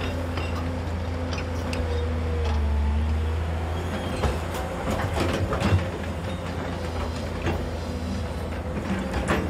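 JCB tracked excavator's diesel engine running steadily as the machine dumps into a truck and swings back to dig. From about four seconds in, a run of sharp metal clanks from the bucket and arm, with another near the end.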